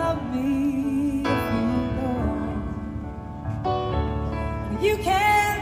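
Live band playing a slow ballad: sustained piano and keyboard chords change every second or so in a gap between sung lines. A woman's singing voice comes back in near the end.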